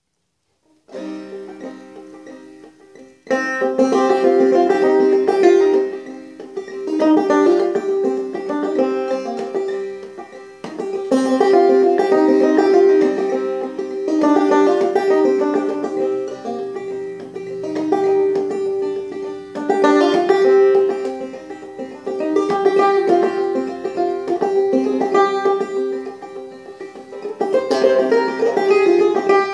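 Banjo played clawhammer (frailing) style, an instrumental passage of plucked notes in a steady rhythm. It starts softly about a second in and gets fuller and louder a couple of seconds later.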